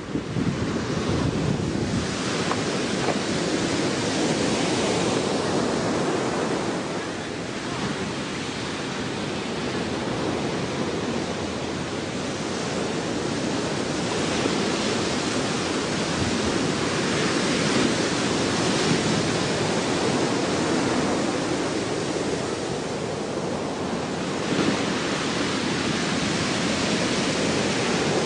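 Steady rush of ocean surf with wind buffeting the microphone, slowly swelling and easing over several seconds.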